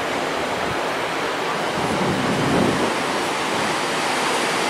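Ocean surf washing onto a beach: a steady rushing noise that swells a little about two seconds in.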